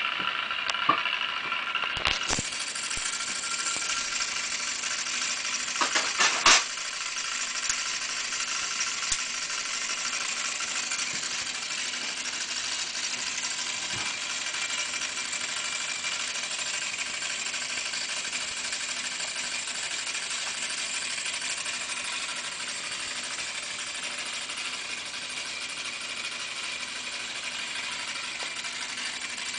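Noise-making element built into a mixed-media painting, switched on with a couple of clicks, then a steady high-pitched hissing noise. A few more clicks and handling knocks come a few seconds later.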